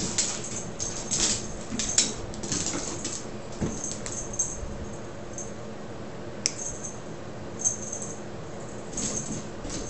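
Young cat's paws and claws skittering and ticking on a vinyl tile floor as it darts after a laser dot, in irregular quick bursts with a quieter stretch in the middle and one sharp click late on.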